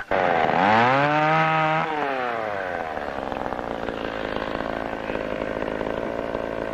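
Two-stroke chainsaw revving up sharply just after the start, holding high for about a second, then dropping back and running steadily as it cuts into a log.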